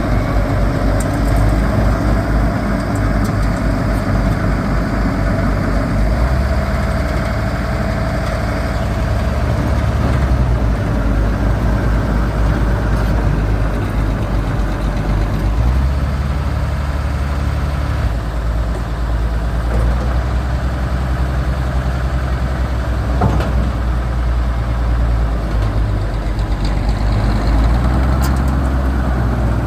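Heavy machinery's diesel engine running continuously, its low note stepping up and down several times.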